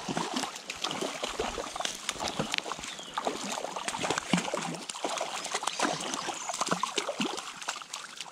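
A hooked trout thrashing at the surface of the water, making a run of irregular splashes that die down near the end.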